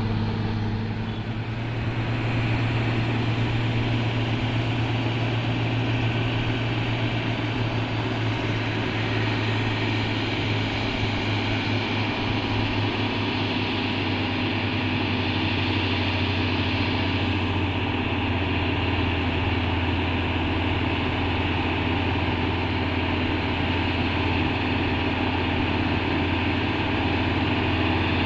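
Heavy diesel truck engine running steadily, a deep low hum with a steady higher note over it; the low note drops slightly about ten to fourteen seconds in.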